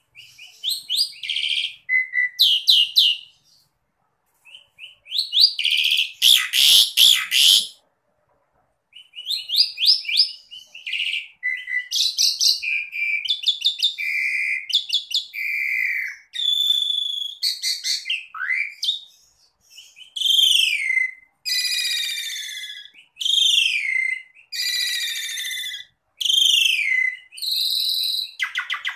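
Asian pied starling (jalak suren) singing a varied song of rapid chattering trills, a loud harsh squawk, and whistled notes, many gliding downward, in phrases separated by short pauses.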